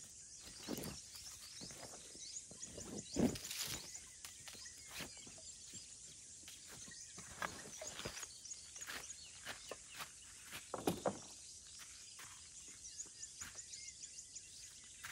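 Camping gear being handled and packed: rustling of a canvas bag and backpack, a few soft thumps with the loudest about three seconds in and again about eleven seconds in, and footsteps on sand. Faint high chirping runs behind it.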